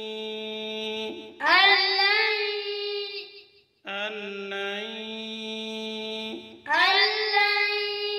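Slow, melodic Quranic recitation in Arabic of the phrase being taught, 'ayaḥsabu an lan'. Twice, the voice holds a long steady note and then slides up into a louder, higher phrase.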